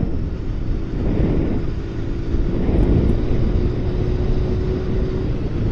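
Motorcycle riding at a steady speed: a continuous engine and road rumble with a faint steady hum.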